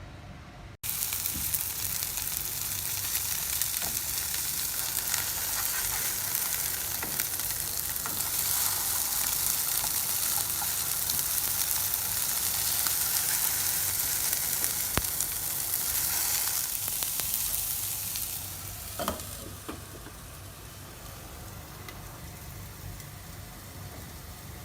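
Food sizzling as it fries in a pan. The sizzle starts abruptly about a second in and grows louder in the middle. Near the end it dies down to a quieter sizzle, with a short knock just after it drops.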